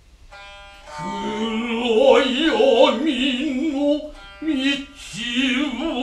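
A biwa is struck once, ringing with many overtones. A voice then chants in long held notes with a wide, wavering vibrato, breaking off briefly about two-thirds of the way through and starting again.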